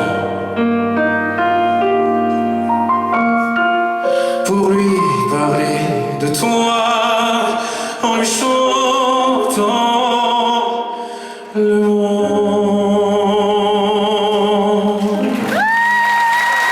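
Live band playing the closing instrumental bars of a French pop-folk song, with wordless wavering sung notes over it. Near the end a new high note glides up and is held.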